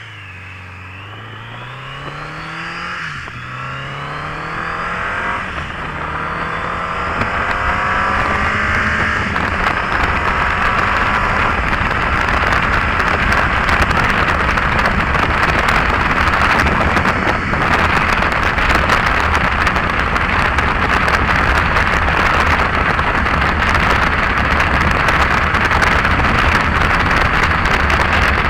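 Motorcycle engine accelerating, its pitch climbing, dropping at a gear shift about three seconds in, then climbing again. From about eight seconds on, heavy wind noise on the rider's mic drowns the engine and stays loud.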